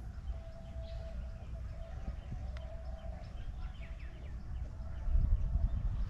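Outdoor field ambience: wind rumbling on the microphone, with faint small bird chirps and a faint held tone coming and going.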